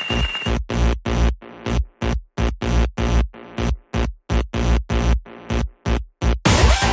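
Electronic background music with a drum-machine beat. After about half a second it breaks into short chopped stabs, about three a second, and the full track comes back near the end.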